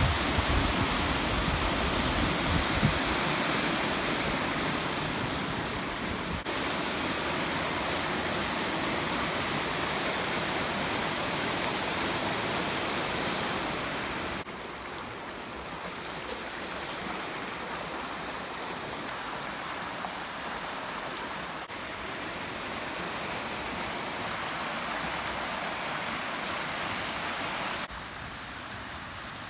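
Steady rushing water, as of a river or waterfall, heard in several short clips that cut abruptly from one to the next, each at a slightly different level.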